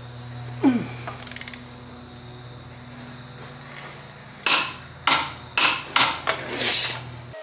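Hand ratchet turning the wheel's lug nuts. A sharp click about a second in is followed by a quick run of ratchet clicks, then five loud rasping ratchet strokes in the second half. A steady low hum lies underneath.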